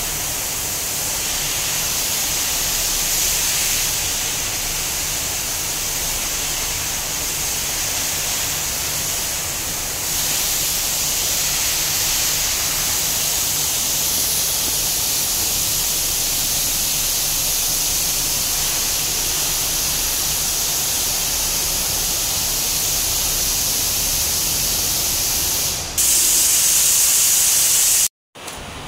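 Steady loud hiss with a low hum beneath it. It steps louder about ten seconds in and again near the end, then cuts out for a moment.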